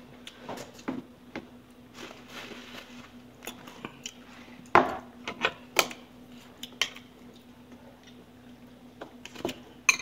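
Eating sounds at a meal: scattered light clicks and clinks of utensils against dishes, with some chewing and biting. The loudest clicks come about halfway through.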